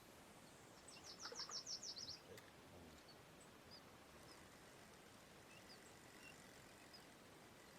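A songbird singing: one quick run of about eight high, falling notes lasting about a second, followed by a few faint scattered chirps over quiet outdoor background.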